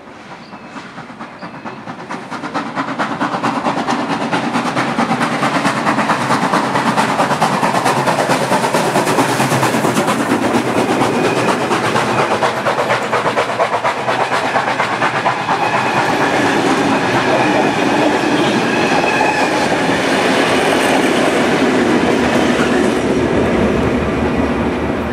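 A steam train passing close by: NSWGR C36-class steam locomotive 3642 rolls past, then its tender and carriages, their wheels clattering rapidly over the rails. The sound builds over the first few seconds, stays loud and steady, and eases off near the end.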